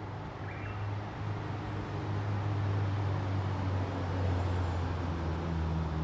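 Low engine drone of a passing motor vehicle, steadily building in loudness, with a few faint, short high bird calls over it.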